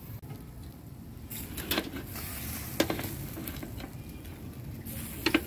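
Marinated chicken necks and tails on skewers sizzling over glowing charcoal, with a few sharp crackles from the coals.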